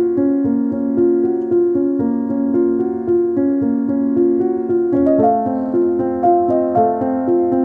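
Background piano music: a gentle melody of held notes, moving to a new set of notes about five seconds in.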